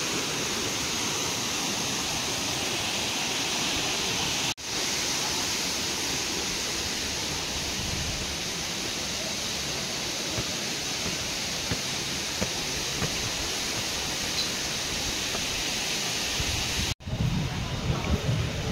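Waterfall running, a steady rushing hiss of falling water, broken by two sudden cuts. After the second cut, about a second and a half before the end, it gives way to low gusty wind noise and bumps on the microphone.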